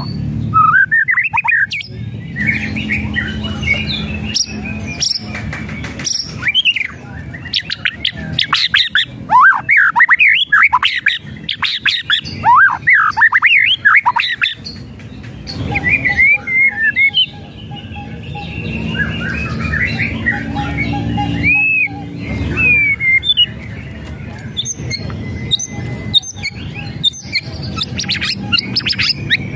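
White-rumped shama (murai batu) singing in loud bursts of rapid, varied whistles and sweeping notes, mixed with the harsh crackling 'kretekan' calls of an agitated bird, with short pauses between phrases.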